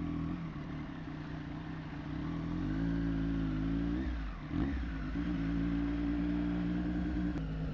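A 2024 Triumph Street Triple 765 RS inline-three engine, fitted with a Racefit Growler full exhaust, pulling away at low speed. The revs climb about three seconds in, drop briefly around four seconds in, then hold steady.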